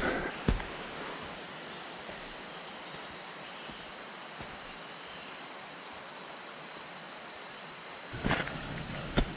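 Steady rushing of water, with a high steady insect drone over it. About eight seconds in it stops suddenly and is followed by sharp footfalls and knocks.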